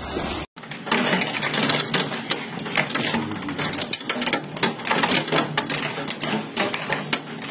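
Hailstones pelting a hard surface in a dense, irregular clatter of sharp impacts, beginning about half a second in.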